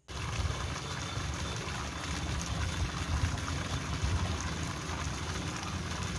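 Water pouring steadily from a wall spout into a swimming pool, a continuous splashing rush.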